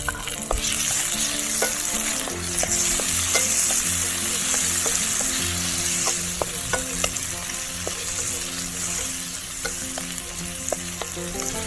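Garlic, onion and tomato frying in sunflower oil: a steady sizzle, with scattered taps of a utensil stirring in the pan.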